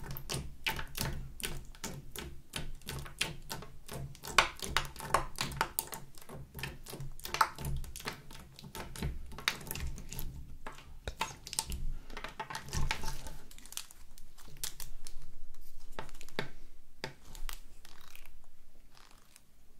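Red and yellow glitter slime clicking as long acrylic nails press and poke into it: a quick, irregular run of sharp little clicks that thins out after about thirteen seconds into softer squishing.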